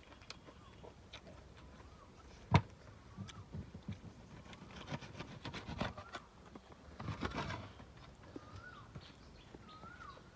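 Close-up food-handling sounds: a single sharp knock about two and a half seconds in, then bursts of crisp crackling and clicking as lettuce leaves are handled and roasted beef is cut with a knife on a metal tray. A bird chirps repeatedly in the background with short rising-and-falling calls.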